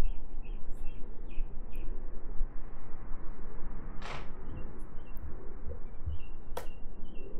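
Small birds chirping in short repeated notes over steady room noise, with a brief rushing sound about four seconds in, a few soft low thumps, and one sharp click near the end.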